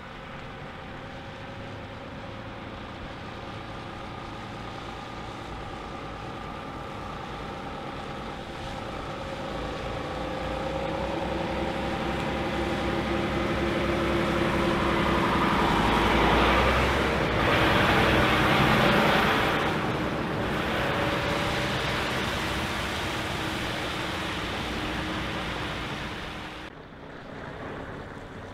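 DAF XF truck's diesel engine pulling its semi-trailer slowly past, growing louder to a peak as it passes close by, then fading away. About 27 s in the sound breaks off suddenly and another truck's engine takes over.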